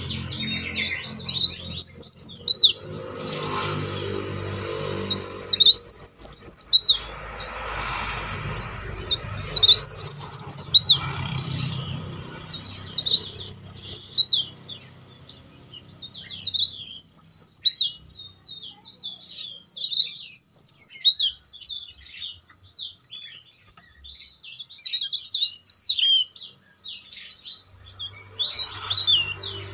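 Cikrak daun, a small leaf warbler, singing loud, shrill, rapid chirping phrases of one to two seconds, repeated every few seconds. A thin steady high tone runs beneath the song from about a third of the way in.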